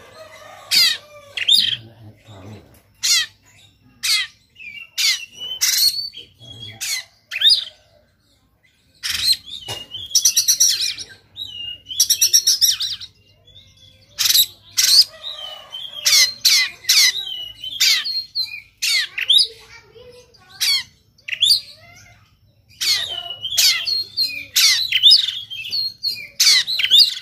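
Oriental magpie-robin (kacer) in full aggressive song: rapid runs of loud, sharp, harsh 'shot' notes mixed with high warbles, broken by brief pauses.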